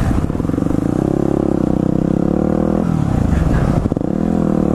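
Yamaha WR250X's single-cylinder four-stroke engine running under load while riding. Its pitch holds steady, drops about three seconds in, then climbs again near the end.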